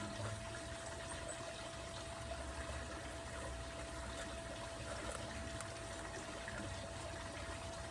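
Steady background noise: a low rumble and even hiss with a faint constant hum, and no distinct event.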